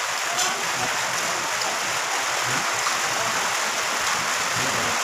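A steady, even hiss like rain or running water.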